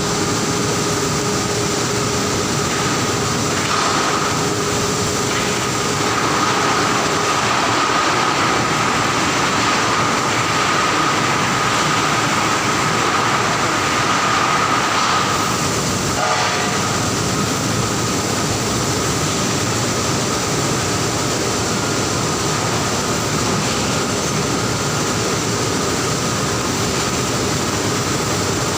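Loud, steady industrial machinery noise from a furnace floor, with a faint steady high whine and a brief warbling sound about halfway through.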